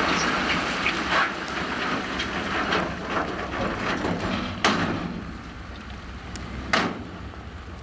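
Heavy earthmoving machine's diesel engine running under load, with a series of sharp metallic clanks and knocks, the two loudest about halfway through and near the end.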